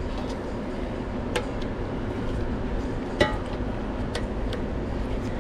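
A few short, sharp clicks and taps, the loudest a little past three seconds in, as the rubber locating nubs of a new oil pan gasket are pressed through the holes in the pan's flange and the pan is handled. A steady low hum runs underneath.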